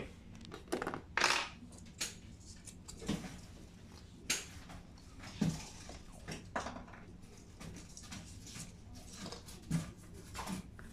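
Scattered light clicks and clinks of small metal tools being picked up and set down on a worktable, over a low steady hum.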